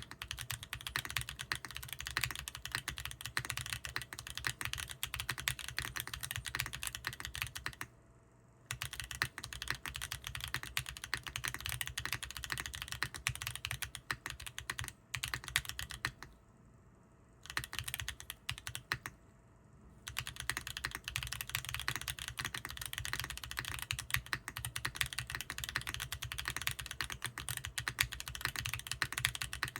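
Fast, continuous typing on a foamless NEO65 Core Plus mechanical keyboard with WS Studios Heavy Tactile switches and KKB Nichirin keycaps: a clacky, dense run of key clicks, broken by three short pauses.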